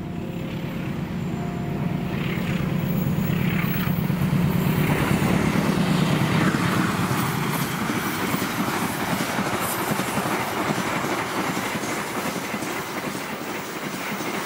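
Diesel locomotive approaching at speed, its engine drone building, then a long passenger train rushing past with its wheels rattling on the rails. The drone eases after the locomotive passes, and the rush of the coaches fades slightly near the end.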